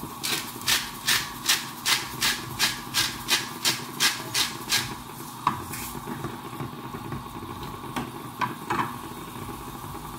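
Gas hob's spark igniter clicking quickly and evenly, about two to three clicks a second for about five seconds, then a few single clicks, over a steady faint hiss.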